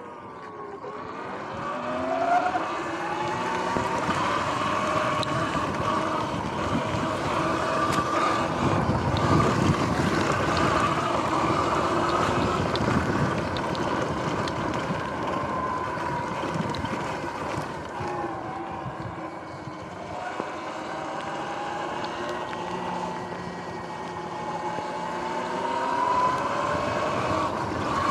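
Electric dirt bike's motor whining, its pitch rising as it speeds up and falling as it eases off, several times over. Wind rushing over the microphone and tyre noise run underneath, heaviest in the middle.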